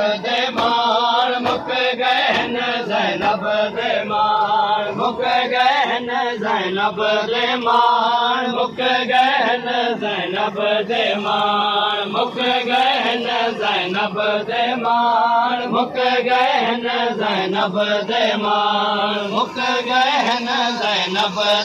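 Men chanting a noha, a Shia lament, in a rising and falling melody, with sharp slaps of hands beating on chests (matam) throughout.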